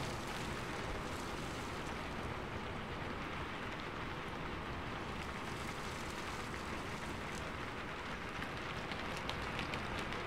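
Steady rain falling: an even hiss with a few scattered drop ticks in the later seconds.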